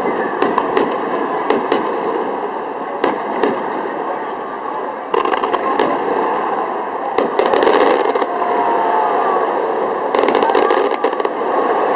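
Fireworks going off: a string of sharp bangs throughout, with two thick bursts of crackling about seven and ten seconds in.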